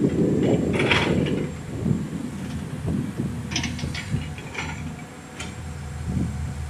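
Heavy diesel machinery running with a low rumble, louder for the first second or so, with irregular metallic clicks and clanks over it.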